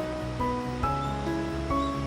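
Background music: a melody of held notes, changing about twice a second, over a steady bass.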